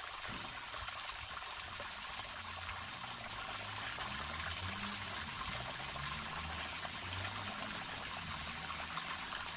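Water from a DIY submersible pump's outlet pipe pouring out in a steady, strong stream.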